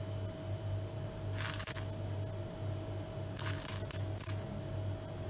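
Chocolate chips being handled and picked from a small ceramic bowl: short rustling, clicking bursts about a second and a half in and twice more later, over a steady low hum.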